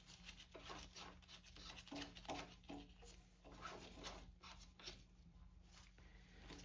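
Faint, irregular small clicks and scrapes of a nut being threaded back onto a motorcycle's steering stem by hand, over a low steady hum.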